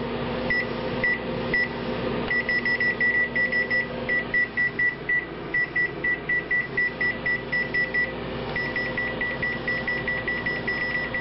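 Microwave oven keypad beeping at each press of its add-30-seconds button as the cook time is stacked up, a few spaced beeps and then a rapid run of about four a second with one short pause, over a steady low hum.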